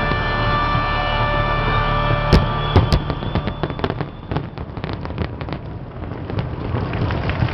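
Fireworks going off: two sharp bangs a little over two seconds in, followed by a long run of rapid crackling pops.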